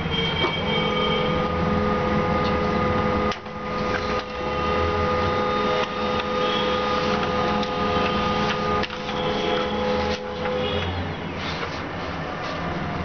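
A small electric machine running steadily with a whine, broken by several sharp clicks. The whine fades out a few seconds before the end.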